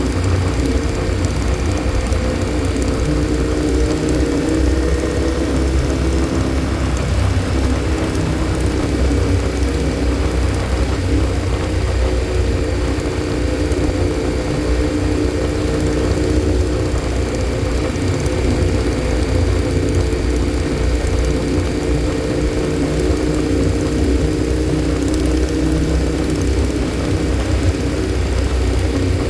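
Motorcycle engine running steadily at cruising speed, with wind and road noise, heard from on the moving bike. The engine's pitch shifts slightly about six seconds in.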